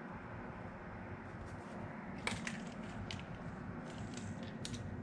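Sharp little clicks and taps of needle-nose pliers and a plastic plug being pressed onto the receiver pins of a small RC crawler chassis, the loudest click about two seconds in and several lighter ones after, over steady room hiss.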